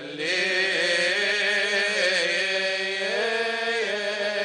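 Male deacons' voices in Coptic liturgical chant, singing one long melismatic line on drawn-out notes that bend slowly in pitch.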